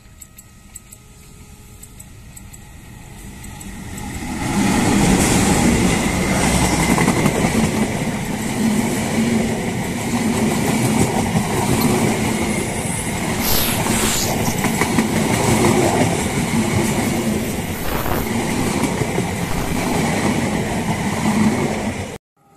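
A KAI diesel-electric locomotive hauling a passenger train approaches and passes close by. The sound builds over the first few seconds, then the coaches go by with a steady loud clatter of wheels on the rails, with a brief high squeal about two-thirds through. It cuts off suddenly near the end.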